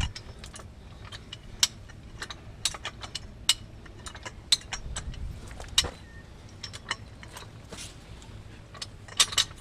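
Steel chain and hi-lift farm jack hardware clinking as the chain is rigged and drawn tight: scattered sharp metallic clicks, then a burst of rapid jangling near the end.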